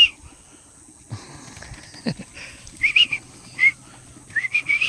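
White livestock guardian dog whining in short, high, wavering whimpers, three times, while its belly is scratched.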